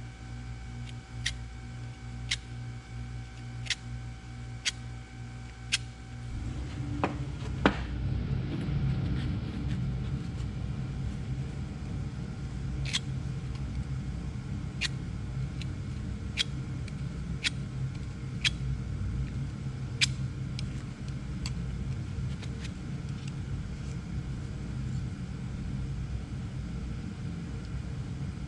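Light clicks and taps, about one a second at first, over a steady low mechanical hum. About six seconds in the hum grows louder and rougher, with a couple of sharper clicks, then scattered taps.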